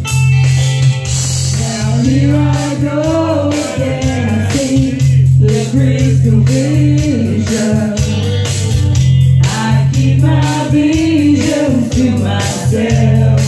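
Two women singing karaoke into microphones over a backing track with a steady beat and heavy bass; the singing comes in about a second and a half in and goes on in phrases.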